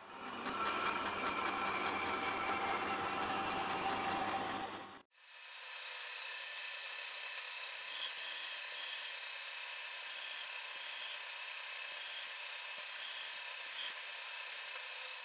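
Twist drill in a milling machine boring into a steel plate: a steady cutting hiss with faint, regularly repeated chirps. For the first five seconds a different, busier machining sound plays, which cuts off abruptly.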